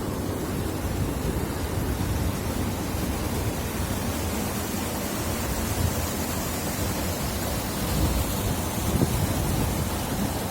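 Water-well drilling rig running while it drills with a rock bit: a steady rumbling noise with a hiss over it, a little louder in the last few seconds.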